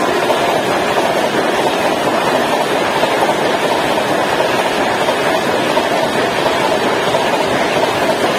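Passenger coaches of an express train rushing past at about 130 km/h: a loud, steady rush of wheels on rail that does not let up.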